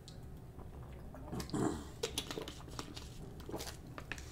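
A person drinking from a bottle: faint sips, swallows and mouth noises, with scattered light clicks.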